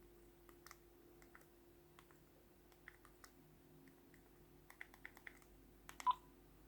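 Faint scattered taps and clicks of a phone being handled and tapped, with a quick run of taps about five seconds in. The loudest click, about six seconds in, carries a short beep.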